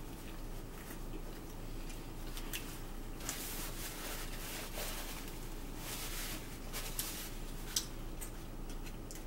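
Quiet eating noises: chewing, a paper towel rustling about three seconds in, and a few small sharp clicks, over a steady low hum.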